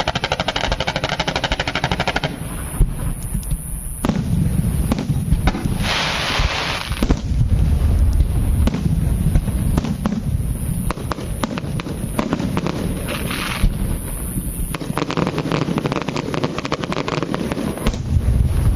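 Fireworks and firecrackers going off in rapid crackling volleys, the bangs coming in quick runs over a steady low rumble.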